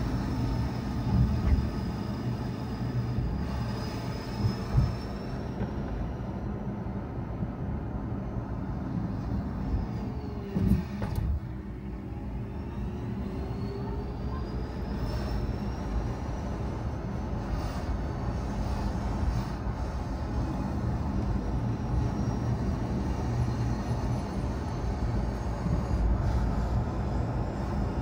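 Car driving on a road: a steady low rumble of engine and tyres, with a few brief knocks. A faint drivetrain whine falls in pitch about a third of the way in, then rises again as the car slows and picks up speed.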